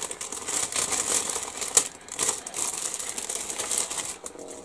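Thin plastic kit bag crinkling and rustling with small clicks of plastic sprues, as a sprue is slid back into its self-sealing bag; it tails off toward the end.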